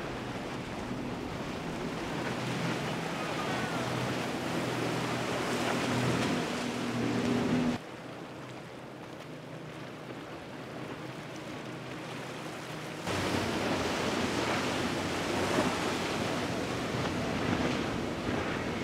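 Motorboats running at speed past the listener one after another: a steady engine drone under the hiss of hull spray, wake and waves, with wind on the microphone. The sound drops abruptly about eight seconds in and jumps back up at about thirteen seconds.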